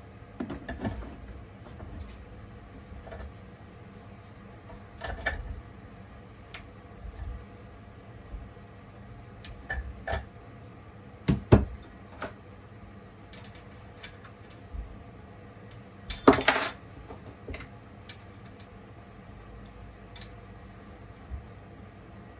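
Small metal chainsaw parts clinking and clicking as they are handled and fitted during hand assembly, with scattered light knocks and two louder metallic clatters, about halfway and about three quarters through, the later one ringing briefly.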